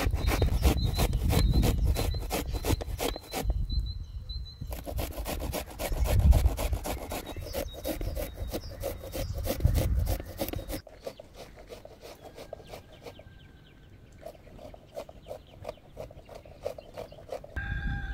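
Close, rapid rustling, snapping and scraping of fresh herbs and green onions being picked over by hand and trimmed with a small knife. The sound drops off suddenly about two-thirds of the way through and becomes fainter, scattered clicks. A rooster starts to crow at the very end.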